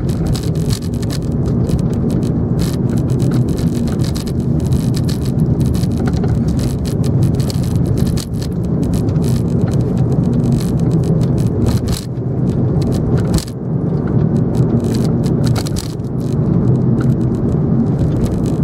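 Steady engine and tyre noise of a car being driven, heard from inside the cabin, with a few short knocks from bumps in the road.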